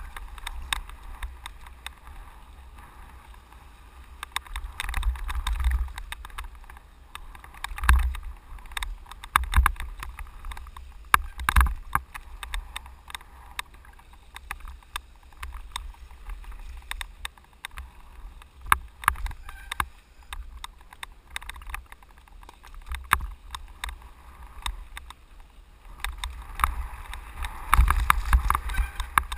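Mountain bike running fast down a rough dirt trail: tyres on dirt and loose rock, with frequent sharp knocks and rattles from the bike over bumps, heaviest in a few rough stretches. A steady low rumble of wind on the microphone runs underneath.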